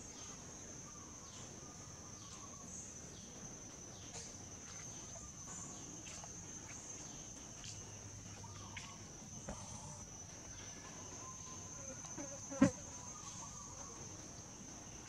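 Insects' steady high-pitched drone, with scattered faint short chirps. One sharp knock late on stands out as the loudest sound.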